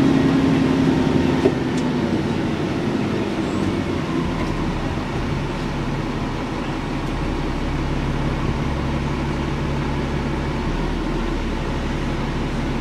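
Cummins ISBe diesel engine of an Alexander Dennis Enviro 400 double-decker bus, heard on board. The engine note eases off about two seconds in, running noise carries on steadily, and the engine pulls harder again in the second half.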